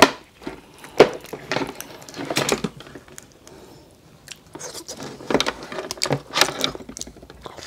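Cooked lobster shell being pulled apart and picked by hand: sharp cracks at the start and about a second in, then scattered bursts of crackling and clicking as the shell breaks and the meat is pulled out.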